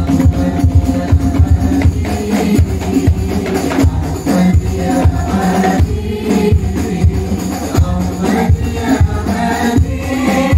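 Group of men singing sholawat (Islamic devotional praise songs) together into microphones, amplified through a PA, over a quick, steady rhythm of hand-percussion beats.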